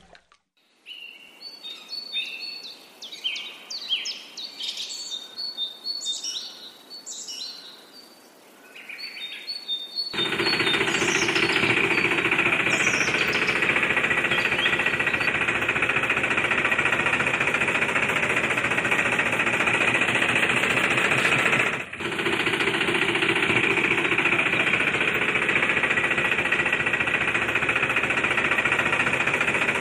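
Birds chirping for about ten seconds. Then a loud, steady mechanical rattle like a small engine begins and runs on, with one brief drop a little past the middle.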